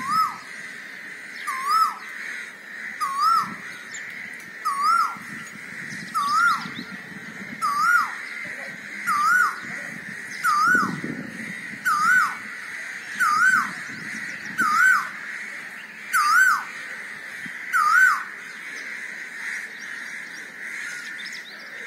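Male Asian koel (koyal) singing: a loud whistled call that rises and falls, repeated about every one and a half seconds, some fourteen times, each a little higher, then stopping near the end.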